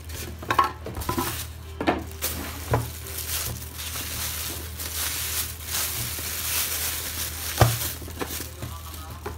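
Thin plastic bag wrapping a waffle maker rustling and crinkling as it is handled, with a few sharp knocks, the loudest a couple of seconds before the end. A steady low hum runs underneath.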